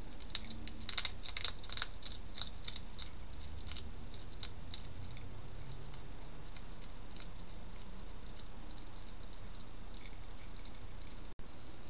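A hedgehog eating from a dish: quick crisp crunching clicks, dense for the first three seconds or so, then sparser, over a steady hiss. The sound cuts out for an instant near the end.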